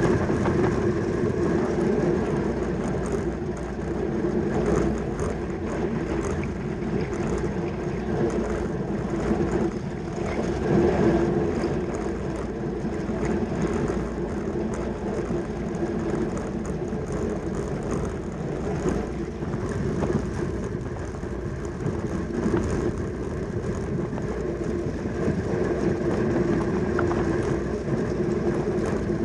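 Track bicycle ridden at racing speed: a steady rolling whir from the tyres and drivetrain over a constant rushing noise.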